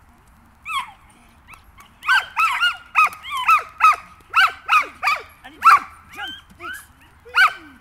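Small dog barking: a single bark, then a fast run of high-pitched yapping barks, two or three a second.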